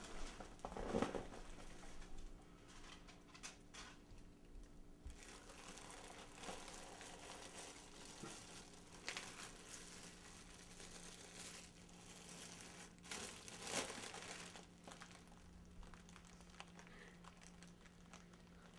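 Foil (mylar) balloon crinkling and rustling as it is handled, with a few louder crackles, over a faint steady hum.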